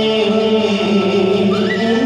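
Traditional Vietnamese music for a water puppet show, with long held notes and a chant-like sung line. About three-quarters of the way in, a note slides up in pitch.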